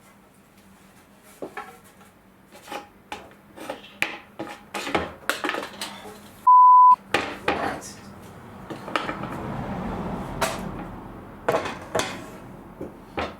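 Knocks and clatter of wooden boards being handled and set down. About halfway through, a loud single-pitch bleep of under half a second replaces all other sound, an edited-in bleep.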